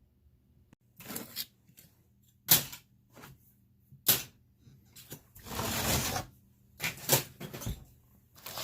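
Scattered knocks and clatters of objects being handled and set down, with a short scraping rush about six seconds in.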